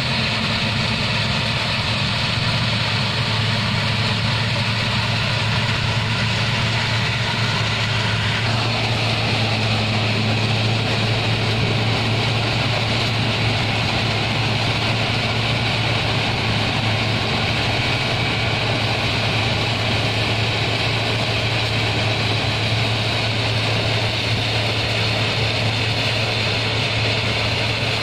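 Sugarcane harvester at work with its cane-haulout tractor alongside: a steady low diesel drone under a continuous mechanical rush of the machinery. The sound shifts slightly about eight seconds in.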